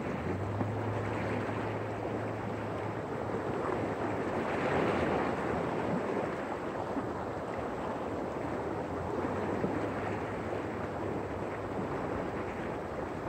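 Small ocean waves washing over a rocky shore, a steady rush that swells once about five seconds in. A low steady hum sits underneath for most of it.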